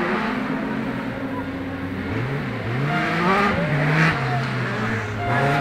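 Race car engines running hard on a dirt track, their pitch rising and falling with each gear change.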